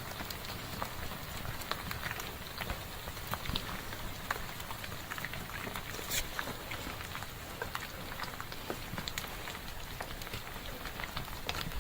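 Rockfall: many stones clattering and knocking as they tumble down a mountain slope, irregular sharp cracks over a steady rushing noise.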